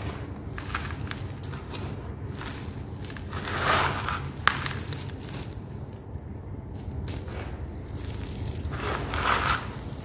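Hands crunching and raking through dry, dusty crumbled sand-cement with small stones: gritty crunching and rustling, swelling into a sifting pour where handfuls are let fall, about four seconds in and again near the end, with a sharp click just after the first pour.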